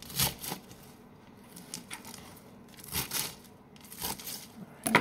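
Crisp iceberg lettuce crunching as it is cut and pulled apart, in a few short bursts.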